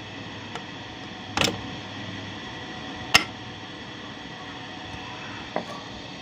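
A few sharp metallic clicks, two loud ones a couple of seconds apart and a fainter one later, as the loose needle-plate nuts of a Juki buttonhole sewing machine are handled and tightened, over steady background noise.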